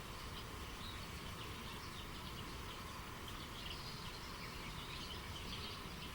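Steady rush of flowing river water with many small birds chirping over it in short, high notes.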